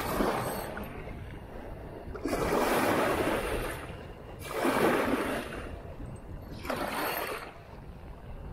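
Waves washing in, in four separate surges of hissing noise, each lasting about a second.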